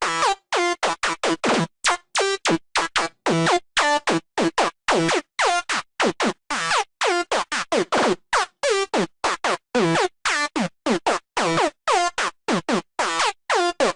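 Sylenth1 software-synth psytrance night full-on lead playing a fast staccato riff, about four short notes a second. Each note bends down in pitch.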